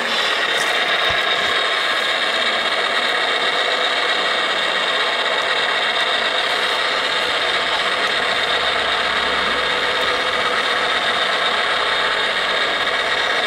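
Radio-controlled model trucks' electric motors and gearboxes whirring steadily.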